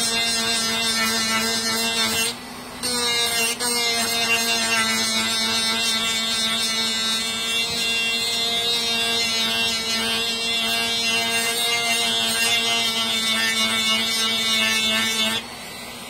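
Small corded rotary grinding tool running steadily as it grinds a steel lock pick thin. It cuts out briefly about two seconds in, starts again, and stops near the end.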